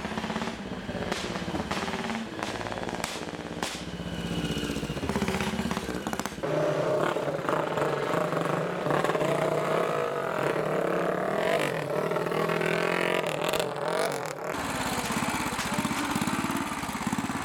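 Vintage motorcycle engines running and revving, the pitch rising and falling with the throttle; the sound changes abruptly twice as one bike gives way to another.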